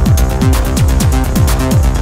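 Electronic dance music with a steady, fast beat: kick drum hits that each drop quickly in pitch, about two and a half a second, with hi-hat ticks above.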